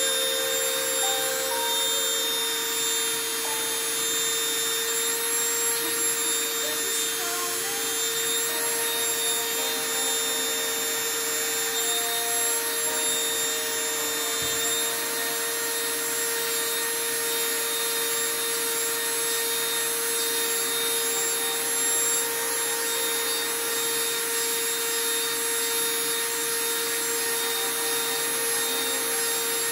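Small handheld rotary tool with a diamond drill bit running steadily while drilling through a piece of sea glass. A constant motor whine with a grinding hiss.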